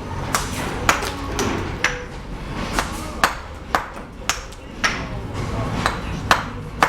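Metal bricklaying tools (trowel and brick hammer) tapping and striking cement bricks and mortar: about a dozen short, ringing clinks at an uneven pace of roughly two a second, as bricks are set and trimmed.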